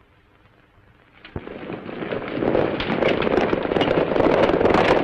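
Hoofbeats of a band of horses galloping, a dense clatter of many quick hoof strikes. It starts abruptly with a sharp knock about a second in and swells to loud within a second or so.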